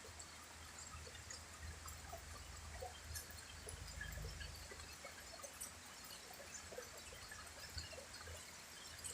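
Heavy rain falling, faint, with many separate drops ticking and splashing.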